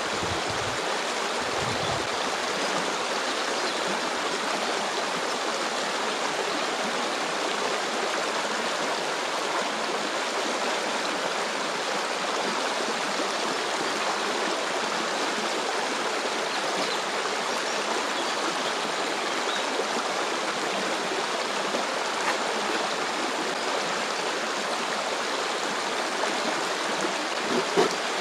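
Stream water flowing and rushing steadily. A few soft knocks in the first two seconds and one louder knock near the end.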